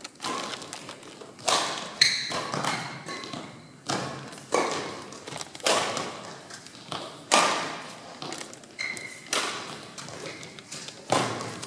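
Badminton rally: rackets striking the shuttlecock back and forth, sharp hits about every second, mixed with players' footfalls on the court. Short squeaks come between some of the hits.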